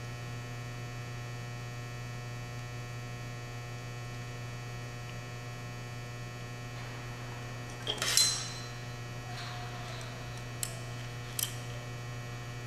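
Steady electrical mains hum. About eight seconds in, a brief metallic clatter as a screwdriver is picked up off the metal workbench, then two small clicks.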